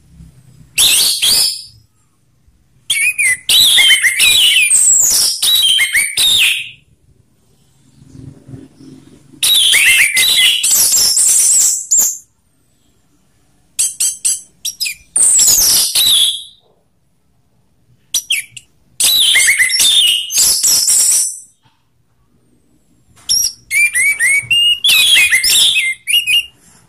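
Orange-headed thrush singing its loud full 'ngeplong' song in about seven bursts of rapid, varied whistled notes with sweeping pitch. The bursts last one to four seconds each, with short pauses between them.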